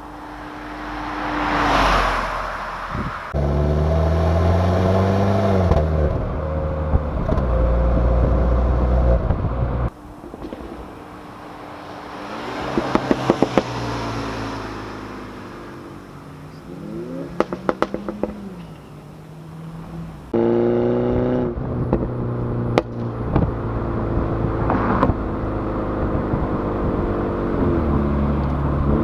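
MINI John Cooper Works turbocharged four-cylinder through the JCW Pro exhaust, accelerating and easing off in several passes, the pitch climbing and then dropping. Sharp pops and crackles come on the overrun in several spots.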